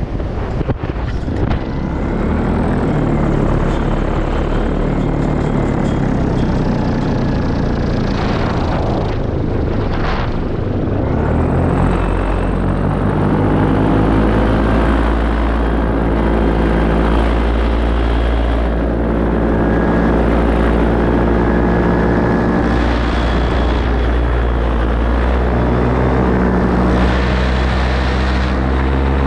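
Paramotor engine and propeller running in flight over wind on the microphone, after an in-flight restart. The engine tone becomes stronger and steadier about twelve seconds in, then holds a steady drone.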